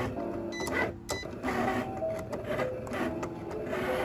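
Cricut Explore Air 2 cutting machine running a cut: its motors whine in short tones that keep shifting in pitch as the carriage and blade move over the paper on the mat, with a couple of light clicks about a second in.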